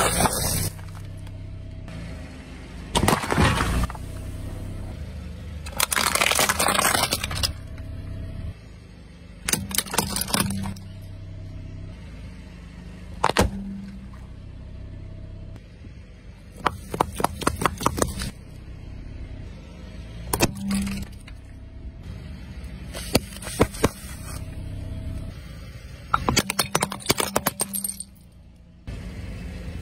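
A car idling while its tyre rolls over and crushes a series of objects, about nine separate bursts of cracking and crunching, some as quick strings of sharp snaps. Near the end, ceramic plates shatter under the tyre with a clinking crunch.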